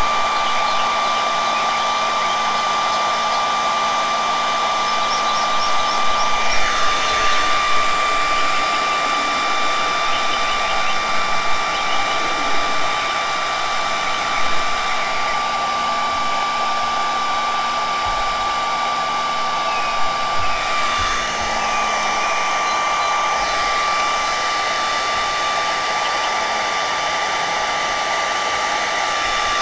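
Electric heat gun running steadily, a hair-dryer-like blowing noise with a high fan whine, heating heat-shrink tubing on a wire splice. The whine dips briefly a couple of times.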